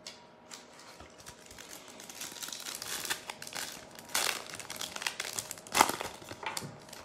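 Plastic foil trading-card pack being torn open and its wrapper crinkled by hand, in a run of crackles with louder crinkles around the middle and near the end.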